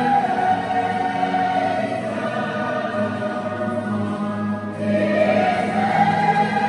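Background music of choir-like singing in long held chords, easing off briefly about four and a half seconds in, then swelling again.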